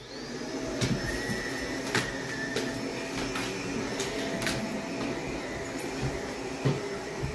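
Upright vacuum cleaner switched on and running steadily, its motor coming up to speed over the first second. Scattered knocks and clatters sound over it as a dog paws and climbs on the vacuum head.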